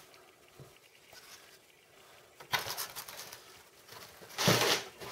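Handling noise as a model starship is taken out of its box and moved onto a wooden tabletop. It is quiet at first, then rubs and scrapes begin about halfway through, with one louder, brief scrape near the end.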